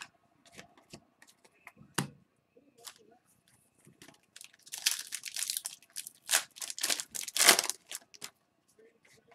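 A foil hockey card pack being torn open and crinkled. A few light clicks of cards being handled come first, then a few seconds of loud rustling and crinkling from about halfway through.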